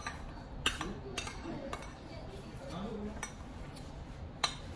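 A metal spoon clinking and scraping against a small stainless steel curry bowl as curry is scooped out of it: about six sharp clinks at uneven intervals, each with a short metallic ring.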